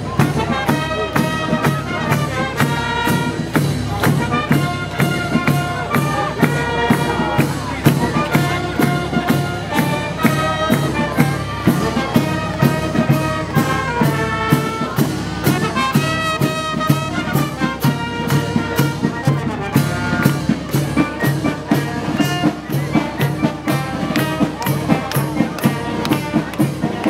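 Brass band music, trumpets and trombones playing held notes over a steady beat.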